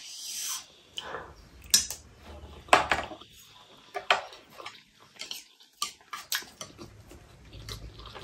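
Chopsticks clicking and scraping against a foil-lined tray as pieces of octopus are picked up: a series of sharp, irregular clicks, with softer chewing in between.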